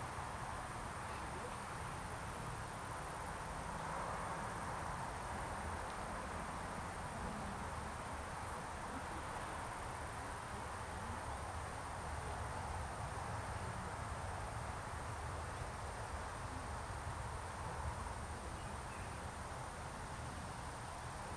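Crickets chirring in one continuous thin, high-pitched trill over a steady low background rumble.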